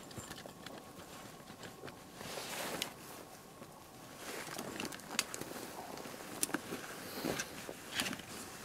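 Rustling and crunching of a person handling gear while kneeling in snow: fabric and pack rustling in swells, with a few sharp clicks, about three, in the second half.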